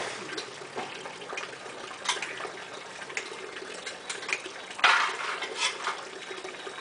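Tap water running through a rubber hose into a plastic bucket of water, a steady trickle with scattered small splashes and knocks. A louder sudden noise comes about five seconds in.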